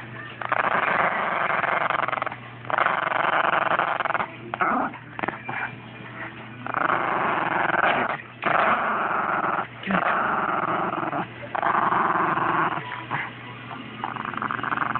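Dog growling in repeated rough bouts of one to two seconds with short breaks, while tugging on a rope toy.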